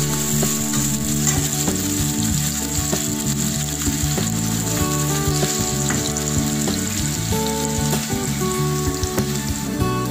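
Chopped onions sizzling steadily as they fry in hot oil in a kadhai, stirred with a spatula that scrapes and taps against the pan.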